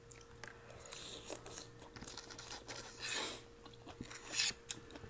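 Close-up eating sounds: chewing and wet mouth noises with light clicks of spoon and fork on plates, and a couple of brief slurps of soup broth.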